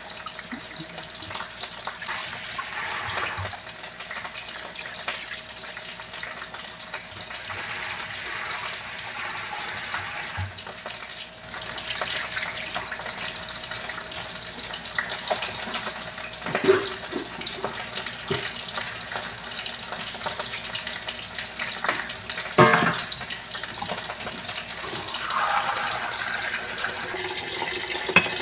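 Kitchen tap running onto a metal wok as it is washed and wiped by hand, with water splashing. There are a few sharp metal knocks of the wok against the sink, the loudest about two-thirds of the way through.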